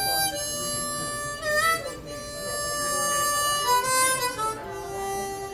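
Harmonica playing a melody of long held notes that step up and down, over acoustic guitar accompaniment.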